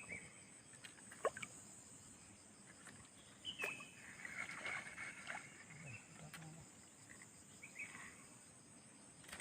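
Faint outdoor ambience: a steady high-pitched insect drone with a few soft scattered clicks and rustles.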